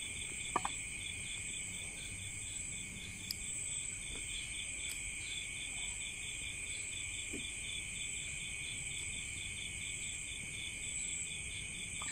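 Night chorus of crickets and other insects: a steady high trilling overlaid with a pulsing chirp of about four a second. A few faint clicks are heard.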